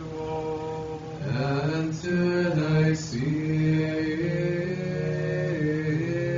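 Choir of monks chanting a liturgical response, a low note held steady beneath a melody that moves in long sustained notes.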